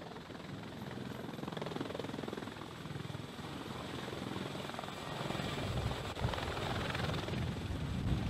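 CH-53E Super Stallion heavy-lift helicopter approaching, its rotor and turbine engine noise growing steadily louder, rising more strongly from about five seconds in.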